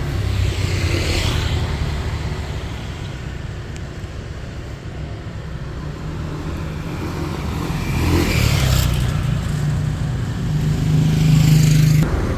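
Road traffic: motor vehicles driving past close by with a low engine rumble, swelling as vehicles pass about a second in and again twice near the end.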